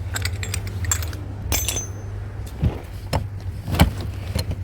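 Metal scrap pieces, such as brass fittings, clinking and knocking together as they are handled and dropped, with a series of sharp clatters over a steady low hum.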